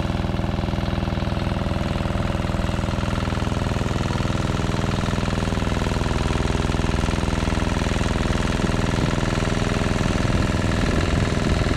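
Petrol generator engine running steadily at constant speed, a dense mechanical drone.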